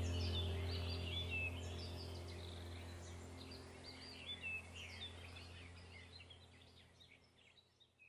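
Small birds chirping repeatedly over a low steady background tone, the whole track fading away steadily toward near silence.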